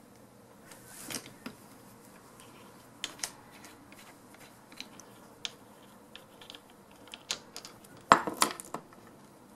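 Irregular small metallic clicks and taps from the opened ratchet mechanism of a Husky torque wrench being handled and worked by hand, with a louder quick run of clicks about eight seconds in.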